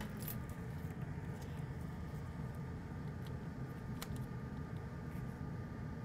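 Steady low hum of workbench equipment with a faint high whine over it, and a couple of light clicks, the sharpest about four seconds in.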